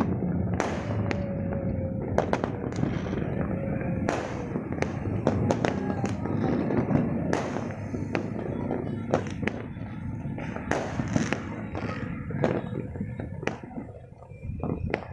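Many fireworks going off across the city at once: a dense, continuous crackle of near and distant bangs, with sharp single reports standing out, thinning out near the end.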